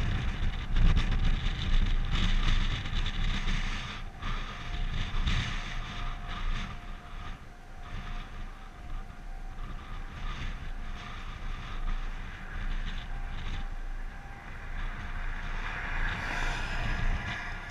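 Gusty wind buffeting the GoPro's microphone, a rough rumble that swells and eases. Underneath, a faint steady tone of a distant tornado warning siren.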